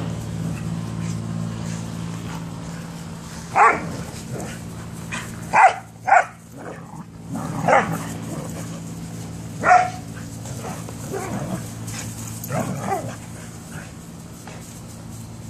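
Dogs barking in play while they wrestle: about five short, sharp barks spaced a second or two apart, then a few softer ones near the end, over a steady low hum.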